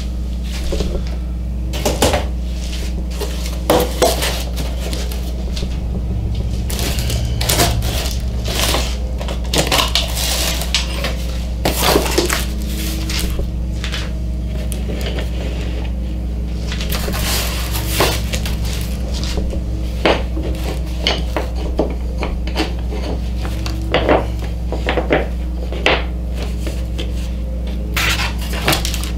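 Small oak end-grain blocks clacking against each other and the bench as they are handled and shifted, with cardboard sliding and crinkling; a steady low hum underneath.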